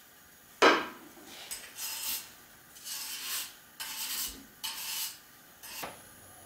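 Wire hand brush scrubbing oxide off stainless steel tubing in separate scraping strokes, about one a second, the first, about half a second in, the loudest.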